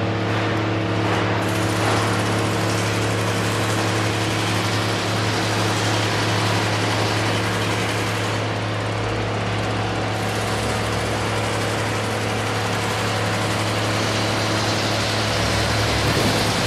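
Rivet hammer generator running steadily: a constant engine drone over a strong low hum.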